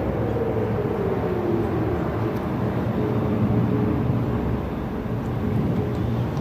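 Civil-defence warning siren sounding during a test, its wail falling in pitch over the first two seconds, then holding a fainter steady tone a few seconds in. A steady low rumble runs underneath.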